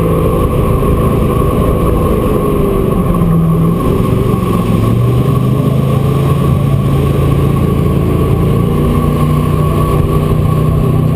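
Jet boat engine running under way, its pitch shifting up and down a little as the boat moves along, with a steady high whine over it.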